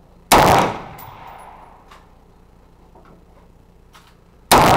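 Two rifle shots from a Smith & Wesson M&P 15 Sport AR-15 in 5.56 mm, about four seconds apart, one shortly after the start and one near the end. Each sharp crack is followed by a short echo.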